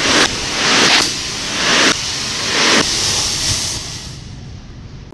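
Homemade rocket motor on a small tethered toy car hissing as it burns, the rush swelling about once a second as the car circles past, then dying away near the end.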